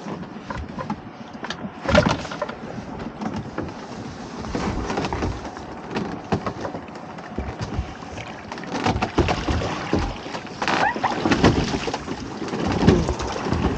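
A rope-and-netting crab pot hauled hand over hand up the side of a small boat and lifted out of the sea: water splashing and streaming off the pot, with scattered knocks of pot and rope against the hull. A sharp knock comes about two seconds in, and the splashing grows busier in the last few seconds as the pot comes aboard.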